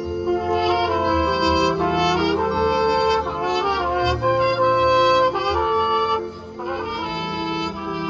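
High school marching band playing, its brass section holding and moving through sustained notes over low brass, with a brief dip in volume a little over six seconds in.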